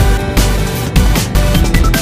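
Loud electronic music with a fast, regular beat and heavy bass.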